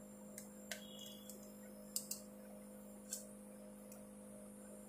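Small sharp clicks of plastic and metal smartphone parts being handled and pried during disassembly, about five in all with a quick double click about two seconds in, over a steady low hum.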